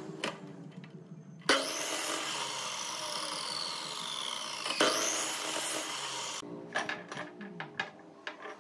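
Miter saw motor running, then its blade cutting through a turned wooden spindle for about five seconds, the whine dropping in pitch under the cut. After the cut the motor runs on with a series of sharp knocks.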